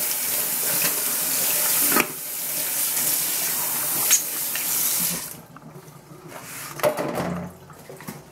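Kitchen tap running into a sink, a steady rush of water that is shut off about five seconds in. A short clatter follows near the end.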